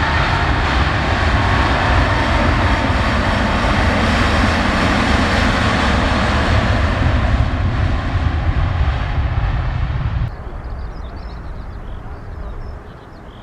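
Jet airliner's engines at takeoff power close by: a loud, steady rush of jet noise. It cuts off abruptly about ten seconds in, leaving a much quieter background with faint high chirps.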